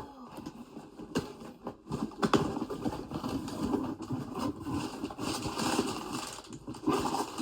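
A cardboard shipping box being opened and its packaging handled: a few sharp knocks early, then continuous scraping and rustling of cardboard and wrapping.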